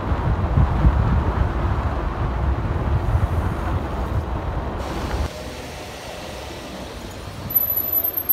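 Wind rumbling on the chest-mounted phone's microphone as a mountain bike rolls along the road; the rumble drops off sharply about five seconds in as the bike slows. Near the end a brief high, thin squeal.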